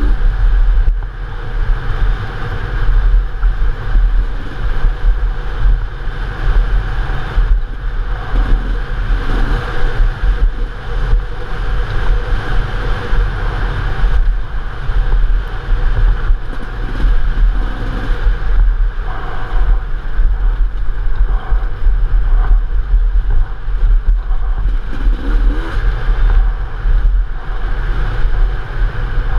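Enduro dirt bike engine running as the bike is ridden over rough ground, its loudness rising and falling continually, with wind noise on the microphone.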